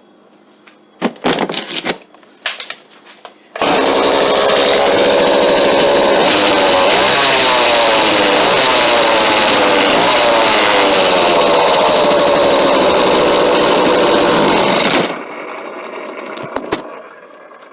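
McCulloch Mac 3200 two-stroke chainsaw starting up after a few short noises, about three and a half seconds in. It runs loud and steady, its pitch rising and falling a couple of times as it is revved, then shuts off about fifteen seconds in. The saw is running again after dirt and sawdust were cleaned from around the flywheel and ignition coil and its fuel lines were replaced.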